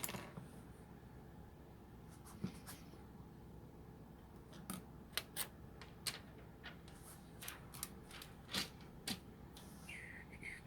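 Scattered light clicks and taps of plastic laptop parts and small tools being handled during reassembly, about a dozen irregularly spaced, with a short squeak near the end.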